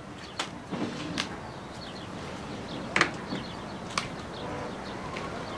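A few sharp wooden clicks and knocks as a wooden cabinet's door is handled, opened and shut, the loudest about three seconds in, over a steady background hiss.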